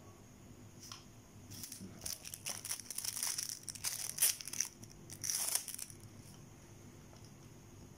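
Thin clear plastic wrapper crinkling as it is torn open to free a plastic food pick: a run of quick, dense crackles starting about one and a half seconds in, loudest about halfway through, stopping near the six-second mark.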